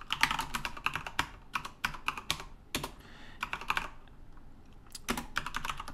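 Typing on a computer keyboard: quick runs of keystroke clicks, with a pause of about a second about four seconds in before a few more keys.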